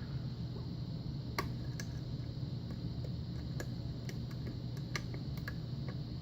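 Small, irregular clicks of a lock pick probing the pins of an old six-pin Russwin pin-tumbler lock held under tension, over a steady low hum.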